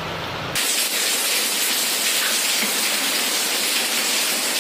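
Heavy rain pouring, a steady hiss of water; about half a second in it cuts abruptly to a louder, brighter hiss.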